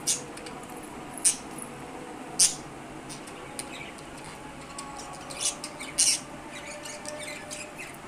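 Budgerigars giving short, sharp chirps and squawks: loud single calls just after the start, about a second in and about two and a half seconds in, two more around five and a half and six seconds, then softer scattered chatter near the end.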